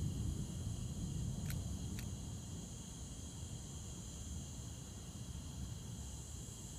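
Night insects, crickets, chirring steadily over a low, uneven rumble. Two short high chirps come about a second and a half in.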